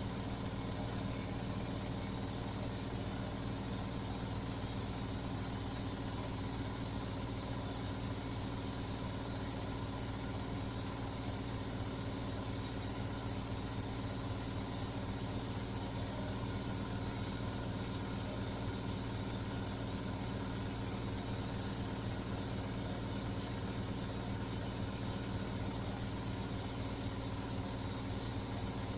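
Beko washing machine running its spin cycle at a steady speed: an even motor and drum hum that holds the same pitch and level throughout.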